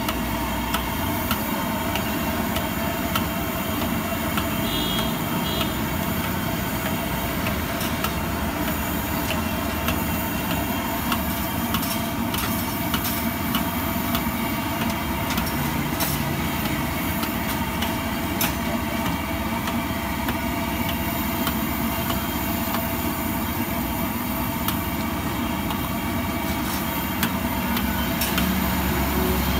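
Sweet potato balls deep-frying in a wok of hot oil over a gas burner: a steady sizzle under a steady hum, with a few sharp clicks of the steel ladle against the wok.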